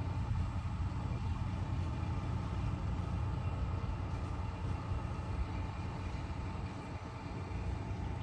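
A heavy vehicle's engine, such as a truck's or bus's, running steadily nearby with a low, even rumble and no change in pitch.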